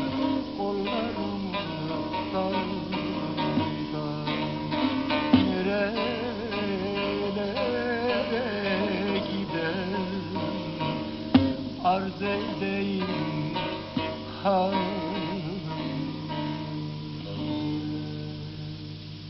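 Bağlama (Turkish long-necked saz) played in a bozlak, a plucked, ornamented melody with a few sharp strikes, trailing off near the end as the piece finishes.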